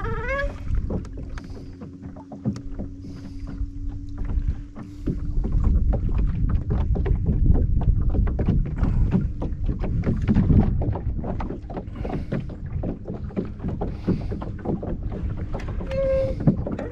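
A small jon boat moving on the water, with water lapping and knocking against the hull over a low rumble and a faint steady hum.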